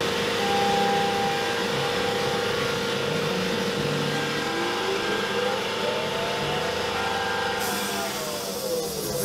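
CNC vertical milling machine cutting an aluminium block under flood coolant: a steady spindle tone over the hiss of coolant spray, with a second whine that rises for about three seconds and then falls away near the end.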